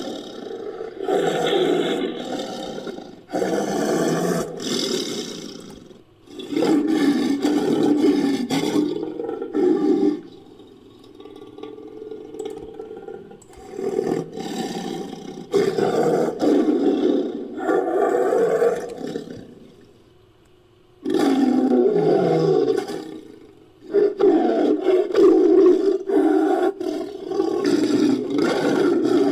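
Designed creature roars for a sabre-toothed Asiatic lion, made from lion and tiger recordings: about seven long roars in a row with short gaps, and a quieter stretch near the middle.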